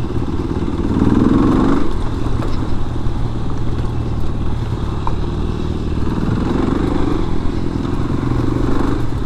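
1998 Kawasaki KLR250's single-cylinder four-stroke engine running under way, the engine note rising with the throttle about a second in and again near the end.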